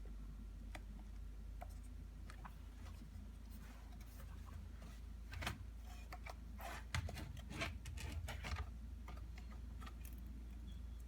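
Light, scattered clicks and taps of hands working on a laptop, with a quick cluster of them about halfway through.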